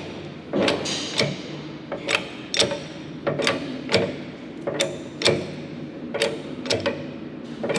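Hydraulic shop press pressing a steel bushing into a cylinder eye: a run of sharp, irregular metallic clicks and ticks, about two a second, each ringing briefly.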